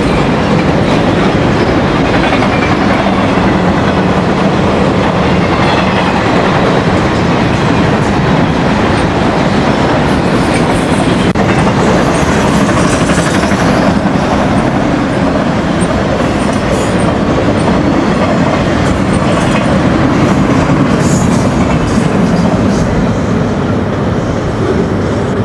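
Conrail trailer-on-flatcar freight train rolling past, a loud steady rumble and rattle of the flatcars' steel wheels on the rails.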